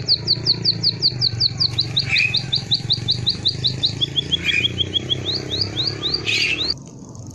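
A small songbird singing a fast, canary-like series of repeated whistled notes, several a second, switching between phrases of different notes: long falling notes first, then shorter ones, a lower run, and a rising run before the song stops suddenly about 6.7 seconds in. A steady low hum sits underneath.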